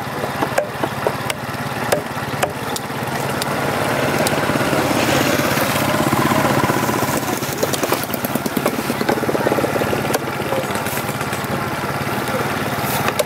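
A small engine running steadily, louder for several seconds in the middle. Scattered sharp knocks of a knife against a wooden chopping block, mostly in the first few seconds.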